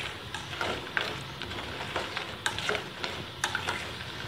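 Metal spoon stirring chunks of jaggery in water in a stainless steel saucepan, scraping and clinking against the pan about once or twice a second over a steady hiss, as the jaggery is dissolved into syrup.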